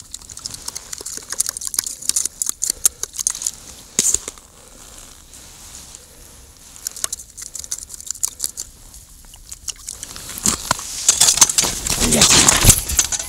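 Scattered light crackles and ticks as dry groundbait is handled in a plastic bucket and scattered onto the ice. Louder crunching footsteps on the ice follow near the end.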